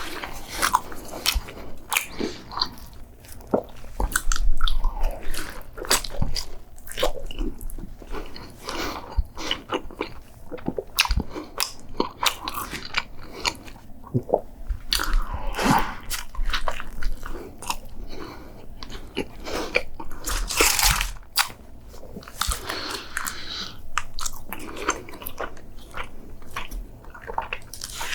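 Close-up eating sounds: biting and chewing a hot dog wrapped in a slice of pepperoni pizza, with irregular crunches and wet mouth clicks.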